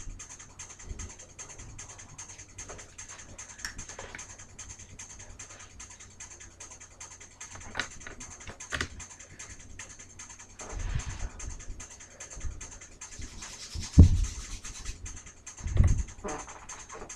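Person moving about and handling things before a shot: scattered light clicks and a few dull low thumps, the loudest about fourteen seconds in, over a faint steady hiss.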